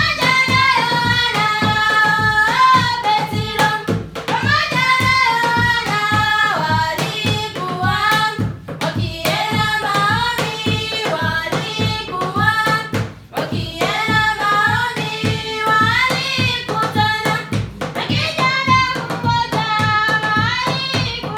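Music: voices singing a melody over a quick, even percussion beat.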